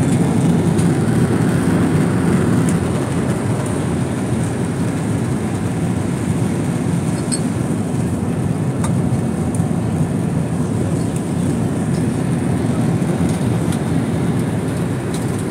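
Steady low rumble of jet airliner cabin noise in cruise flight: engine and airflow noise heard from a window seat.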